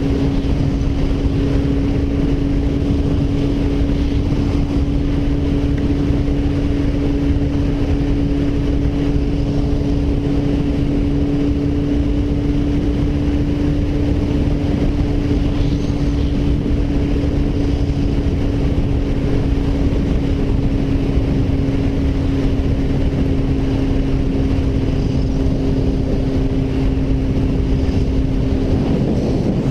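Yamaha FZ1's inline-four engine running at a steady highway cruise, a constant even tone, under heavy wind noise on the microphone.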